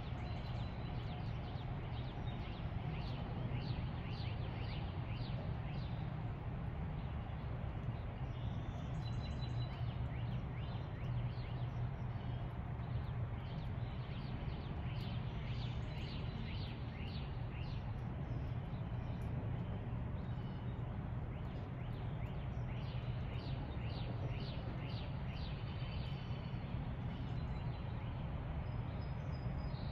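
Wild birds singing in bouts of quick, repeated high chirps over a steady low background rumble.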